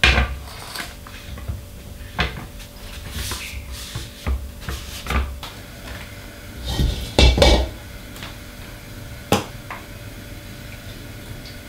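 Kitchen handling noises: scattered knocks and clatter of cookware and utensils against a countertop and a wooden cutting board, with a louder cluster of thumps about seven seconds in and a sharp click a couple of seconds later. A faint steady hum sits underneath.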